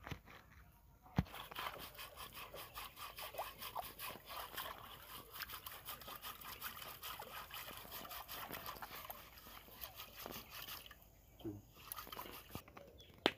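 A blackened cooking pot being scrubbed: rapid scratchy strokes that start after a sharp click about a second in and stop about eleven seconds in.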